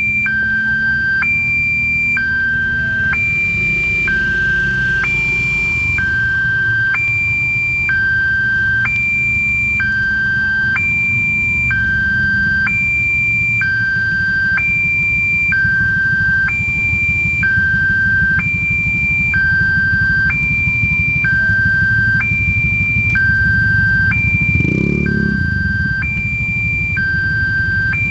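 Railway level-crossing warning siren sounding a two-tone alarm, a high tone and a lower tone alternating about every two-thirds of a second, over a steady low rumble.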